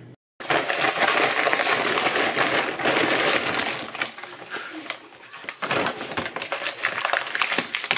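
Shopping bags being handled and unpacked on a table: a dense rustling and crinkling of plastic carrier bags, then a few sharp knocks as things are moved about five to six seconds in.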